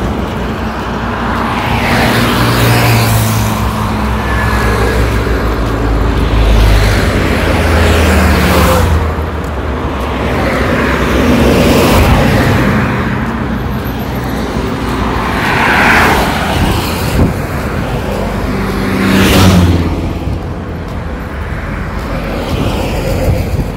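Road traffic on a multi-lane highway: cars passing one after another, each swelling and fading with engine and tyre noise, about five passes, the loudest about 12 and 19 seconds in.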